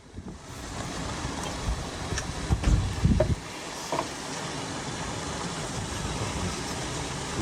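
Strong wind blowing steadily, with a few heavy gusts thumping on the microphone about three seconds in.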